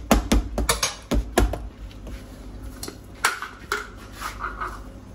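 A quick run of light knocks and taps from a plastic blender bowl and other kitchen containers being handled on a countertop through the first second and a half, then a few scattered clicks and clatters.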